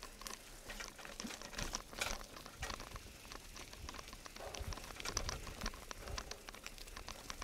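Bianchi mountain bike rolling downhill over a rough dirt and stone trail: the knobby tyres crackle on grit and stones while the bike rattles, an irregular stream of clicks and ticks.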